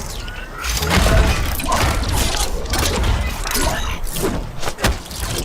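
Dense mix of action-film sound effects: a run of sharp impacts and whooshes with mechanical clanking over a steady low rumble.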